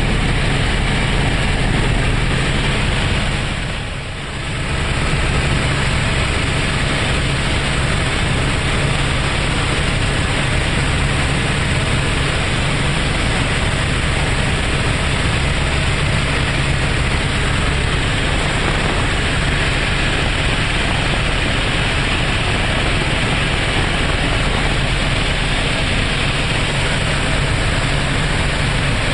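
Helicopter cabin noise in flight: the steady drone of the engine and rotor with a low hum underneath, dipping briefly about four seconds in.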